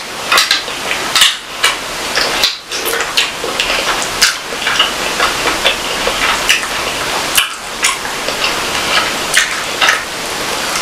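Close-miked eating: chewing with frequent sharp clicks and knocks against a plate.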